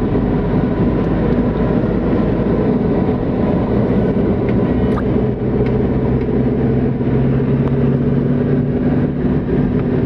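Steady engine drone and tyre noise of a car driving along, heard from inside the cabin.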